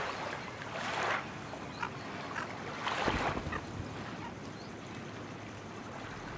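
Shallow water splashing and lapping as dolphins swim along a muddy bank, with two stronger splashes about one second and three seconds in.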